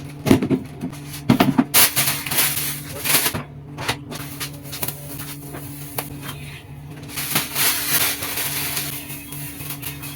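Household cleaning noises: knocks and clatter of objects being handled, with stretches of scrubbing or wiping, over a steady low hum.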